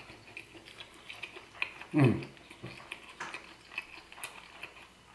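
Close-up chewing of a bite of breakfast burrito: wet mouth clicks and soft smacking ticks throughout. About two seconds in comes a loud, short voiced sound from the eater that falls in pitch.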